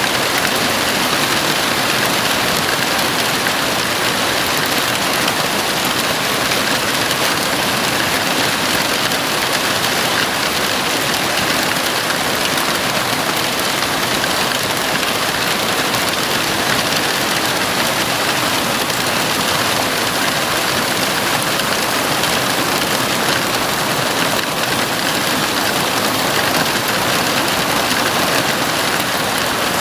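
Heavy rain drumming steadily on a house roof: a dense, even hiss with no breaks.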